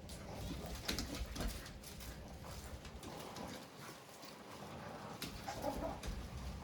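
A few light clicks of small reel parts being handled, with a dog whining in the background.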